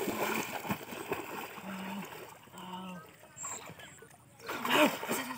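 Shallow muddy water splashing as a bamboo cone fish trap is plunged down through it, loudest in the first second and a half, then dying away, with another loud burst of splashing near the end.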